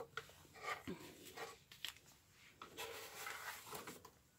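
Faint rustling and rubbing as a cardboard Lego box and plastic bags of pieces are handled, with a few light knocks.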